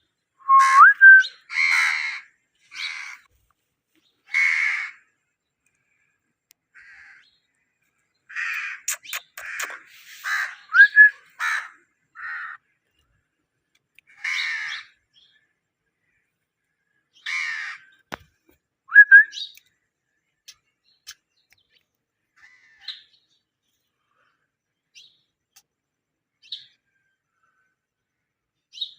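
Indian ringneck parakeet giving short harsh calls in clusters, mixed with a few brief rising whistles. The calls come thickly in the first few seconds and again around ten seconds in, then thin out to a few faint sounds.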